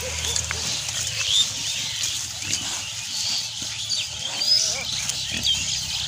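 Pigs grunting as they root and feed in grass, with many short, high bird chirps over them.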